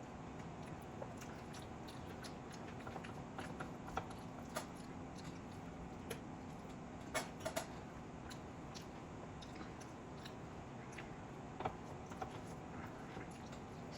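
A person eating chicken biryani: quiet chewing with scattered short mouth clicks and smacks, a few louder ones about halfway through, over a steady background hiss.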